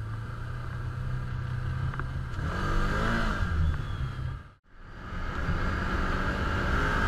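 Can-Am Commander 1000 side-by-side's V-twin engine idling, then revving up and easing off as it pulls away about three seconds in. After a brief break in the sound a little past the middle, it runs steadily at trail speed.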